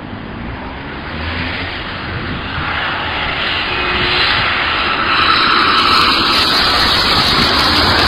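Four-engine jet airliner flying low overhead, its engine noise growing steadily louder as it approaches, with a faint whine in the second half.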